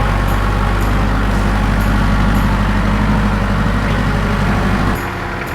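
Vehicle engine running steadily with a deep drone, then easing off with a drop in level about five seconds in.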